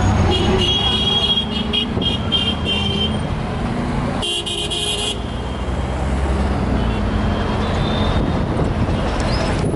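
Busy street traffic: engines running with a steady rumble, a run of short car-horn toots in the first three seconds and a louder horn blast about four and a half seconds in, lasting under a second.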